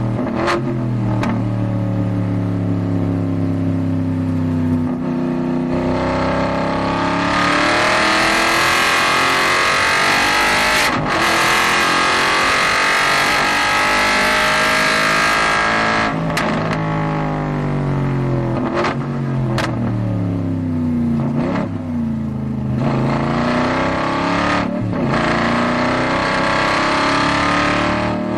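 Aston Martin GT4's V8 engine heard from inside the cockpit on track, its pitch rising and falling with the throttle and breaking sharply at each gear change. A loud stretch of hard acceleration fills the middle; the note then falls away in steps, with blips on the downshifts under braking.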